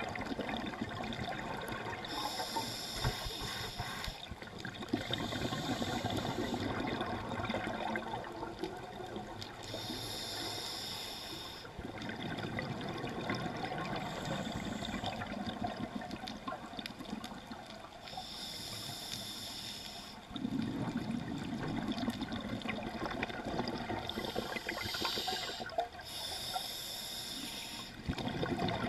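Scuba diver breathing through a regulator underwater. A hiss on each inhalation comes every few seconds, each lasting a second or two, with bubbling exhalations in between.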